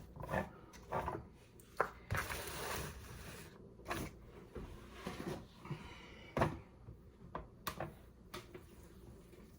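Hands handling plastic food containers and packaging during raw dog-food prep: scattered clicks and knocks, with a longer rustling stretch about two seconds in and one louder knock past the middle.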